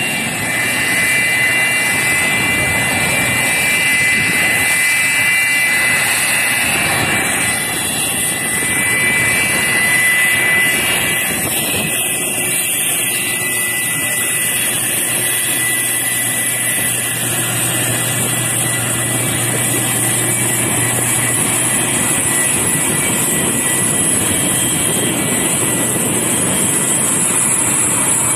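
Jet airliner taxiing, the McDonnell Douglas MD-80's rear-mounted turbofan engines running steadily at low power with a high-pitched whine.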